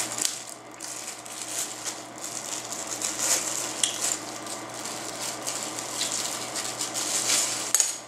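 Paper and plastic wrapping being handled: a continuous crinkling rustle, with a sharper crackle near the end.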